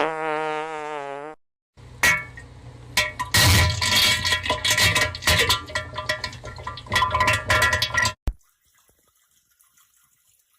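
Comic fart sound effect: a pitched, wobbling fart for just over a second, then after a short pause about six seconds of spluttering, crackling diarrhea noises over a low rumble that cut off suddenly, leaving a faint hiss.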